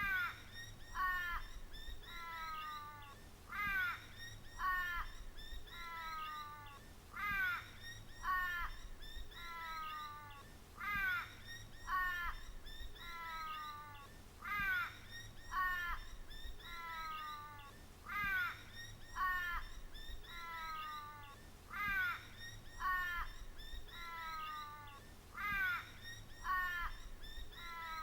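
A looped call-like sound effect, the same two-part cry repeating about every three and a half seconds: a falling call of several tones, then two short, sharp notes.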